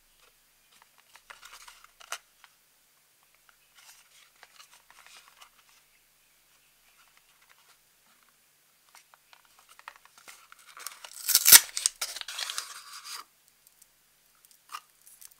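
Small cardboard box of a Furuta Choco Egg rustling lightly as it is turned in the fingers, then torn open about ten seconds in with a loud rip of card and paper lasting a couple of seconds. A short crinkle near the end.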